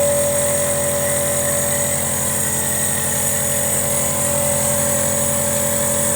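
Compressor nebulizer running steadily, its electric compressor giving a constant hum with a high hiss on top as it makes the medicine mist.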